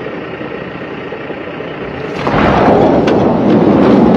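A Rivian electric truck's tyres spinning and throwing snow and slush as it pulls. The loud rushing starts about two seconds in, after a steadier, quieter noise, and a few sharp ticks sound through it.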